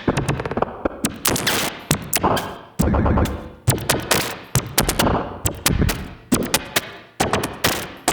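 Bugbrand Chirper 2-frame modular synthesizer playing an experimental piece: four modulating voices switch at the same rate, giving a jumping 'hiccup' rhythm, with a heavy glitch effect. Sudden bursts, each fading away, start about once a second, scattered with sharp clicks.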